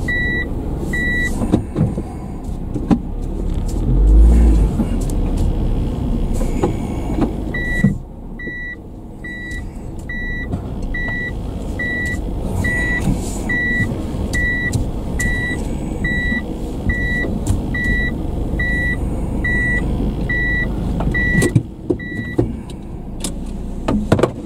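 A car's in-cabin reverse-gear warning beeping in a steady, even series of short high beeps, a little more than one a second, over the low rumble of the car. The beeping stops shortly after the start and starts again about eight seconds in, running until near the end. There is a low thud about four seconds in.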